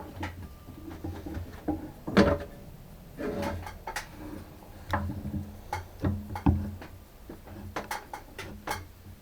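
Irregular clinks and knocks of metal tools and parts being handled and set down at a workbench, over a steady low hum.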